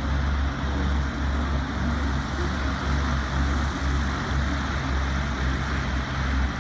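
Zeppelin NT airship's propeller engines running steadily, a low drone with a hiss over it.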